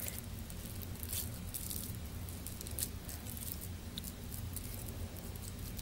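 Soft squishes and pats of bare hands shaping wet minced beef into a burger patty, over a steady low hum.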